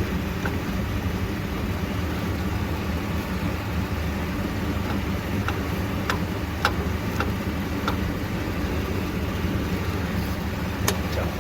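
Pickup truck engine idling steadily, with a few sharp clicks over it.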